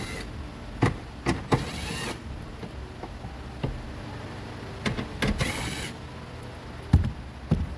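Small power tool whirring in two short runs of about half a second each, backing off the nuts that hold a tailgate handle, with sharp metallic clicks and knocks of the tool and nuts in between.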